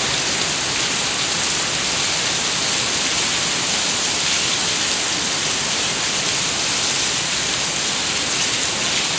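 Heavy rain falling steadily, a dense even hiss, with rainwater running off the porch roof being caught in a plastic gallon jug.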